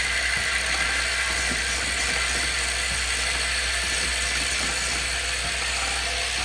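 Automatic perfume filling, crimping and pressing machine running on air and electric power, a steady hiss with a faint, regularly repeating mechanical clicking.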